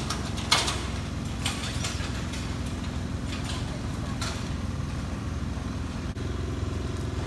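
A steady low hum of a running engine, with a few short crackles over it.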